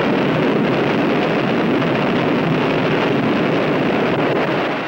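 A high-rise building collapsing in an explosive demolition: a loud, steady rumble of falling masonry and debris that fades away near the end.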